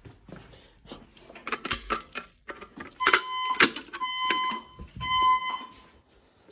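Fire alarm notification appliance sounding three evenly spaced pulses of a steady, buzzy high tone: the temporal-3 evacuation signal. Scattered clicks and knocks come before the tone, in the first few seconds.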